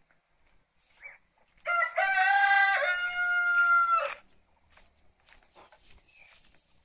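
A rooster crowing once, a single long call of about two and a half seconds that steps slightly down in pitch partway through.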